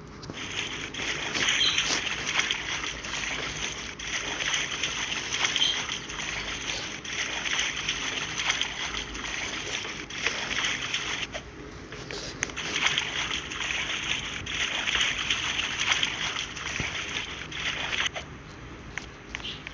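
Water splashing and sloshing, irregular and continuous, easing off briefly about eleven seconds in and again near the end.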